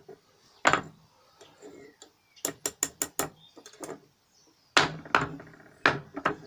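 Metal ingot mould clanking and knocking as it is jiggled and tapped to free a zinc-aluminium ingot stuck fast inside. A single knock comes first, then a quick run of about five knocks some two and a half seconds in, then a few more spaced knocks.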